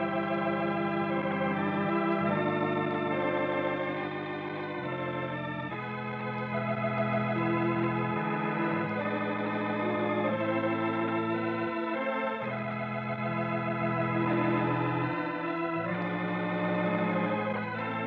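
Organ playing sustained chords with a slight vibrato, the harmony changing every second or two: a radio program's closing theme music.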